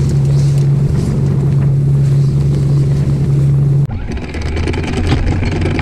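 Sailing catamaran under way: a steady low hum with wind and water noise. About four seconds in it cuts abruptly to a hissier rush of wind and water over a lower hum.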